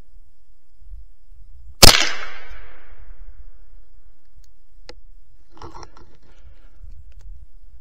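A single shot from a scoped hunting rifle about two seconds in, its echo dying away over a second or two, taken at a fox squirrel. A faint click and a brief rustle follow a few seconds later.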